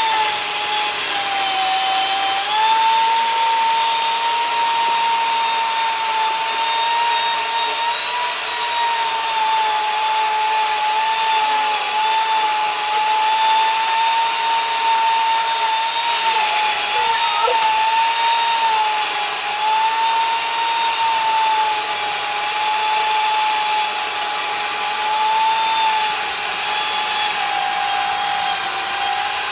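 Power saw running steadily as it cuts into a tree, a continuous motor whine whose pitch dips slightly now and then under load.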